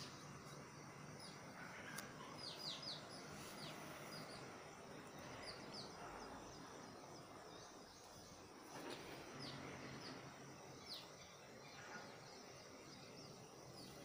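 Faint house sparrow chirps: short, high notes that slide downward, coming singly and in quick little runs of two or three throughout.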